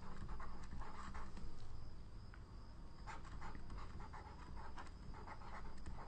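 Faint scratching of a pen tip writing, in short irregular strokes.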